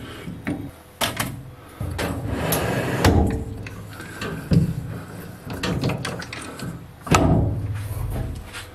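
Irregular metal clanks, knocks and scrapes as a cast-iron lathe steady rest is unbolted with a wrench and lifted off, and the tailstock is slid up to bring the live centre against the workpiece.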